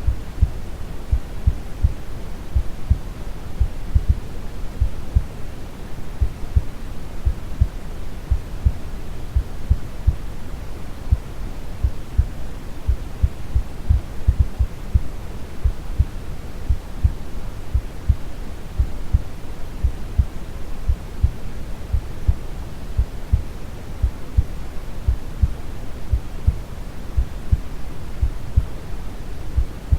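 Synthetic brown noise, a steady deep rumbling hiss, under a slow, calm heartbeat of regular low thumps.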